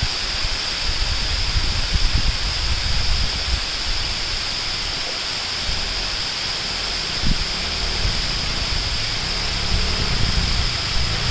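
Steady rushing outdoor noise with an uneven low rumble and a constant high hiss.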